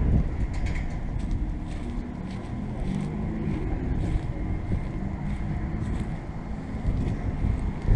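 Trane XR13 heat pump outdoor unit running, a steady hum of its fan and compressor, heard under wind rumble on the microphone.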